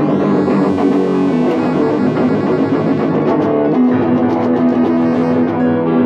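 Energetic instrumental music led by a guitar playing a chord progression, with bass underneath.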